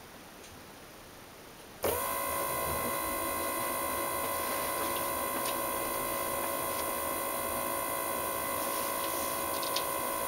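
BMW E36 in-tank electric fuel pump switching on about two seconds in and running with a steady whine, building pressure in the fuel line.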